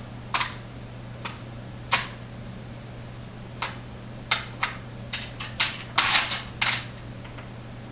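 Small loose metal lock parts clicking and tapping as they are sifted through in a search for a missing pin: scattered light clicks, bunching into a quick run near the end, over a steady low hum.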